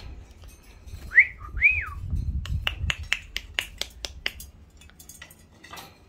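A two-note whistle about a second in, the first note rising and the second rising then falling, followed by a run of quick sharp clicks, about five a second, for roughly two seconds.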